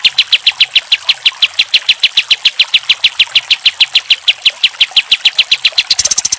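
A kapas tembak, a bulbul, calls in a rapid, even run of short high notes at about eight a second. A brief hiss joins in near the end.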